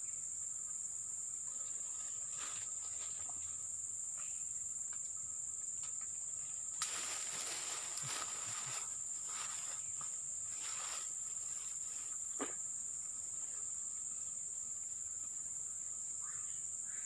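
Steady high-pitched drone of insects in riverside forest, unbroken throughout. About seven seconds in there is a click followed by a couple of seconds of rustling, and a brief sharp falling sound around twelve seconds in.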